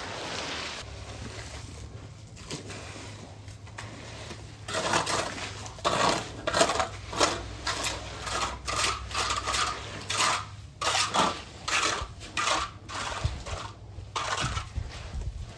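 Metal objects clattering and scraping against each other: after a steady low rumble, a rapid, irregular run of sharp knocks with a slight ring starts about five seconds in.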